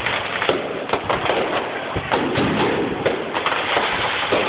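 Aerial fireworks bursting overhead: a dense, continual run of bangs and crackles.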